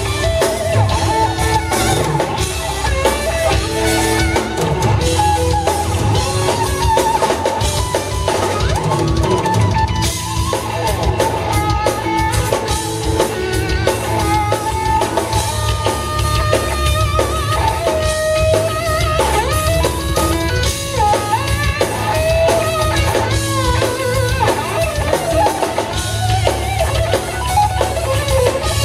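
Live instrumental rock played by a trio: electric guitar carrying a lead melody with bent and wavering notes over bass and a full drum kit.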